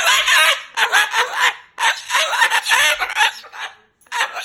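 Moluccan cockatoo vocalizing loudly in raspy, speech-like chatter, three bursts with a short pause near the end.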